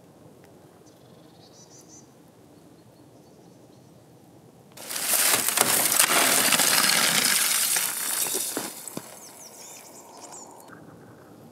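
Boots crunching through frozen snow and reeds and breaking thin shore ice. A loud crunching starts about halfway in and lasts about four seconds, then dies down to faint crackles.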